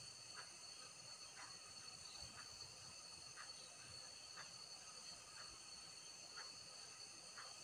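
Near silence: room tone with a faint steady high hiss and a faint short tick about once a second.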